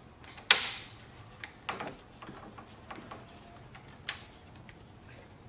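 Rebuilt Toyota W58 five-speed manual gear set, cases off, being shifted by hand in a bench test: two sharp metallic clacks that ring briefly, one about half a second in and one about four seconds in, with lighter clicks and rattles of gears and shift parts between.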